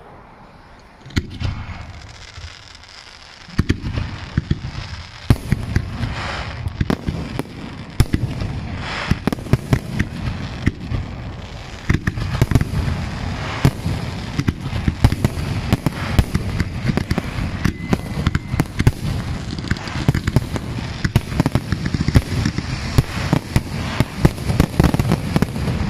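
Fireworks display: aerial shells bursting, with a few separate bangs at first, then from about four seconds in a dense run of rapid, overlapping bangs and crackling that keeps on.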